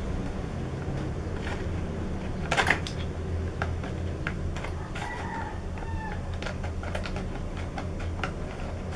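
Scissors snipping and scraping at the sticker seal on a small cardboard CPU box, a few sharp clicks with the loudest a little under three seconds in. A steady low hum runs underneath.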